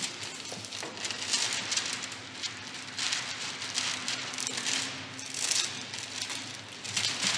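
A large thin sheet crinkling and rustling as it is spread and smoothed by hand over a car roof, in irregular crackles that swell and fade several times.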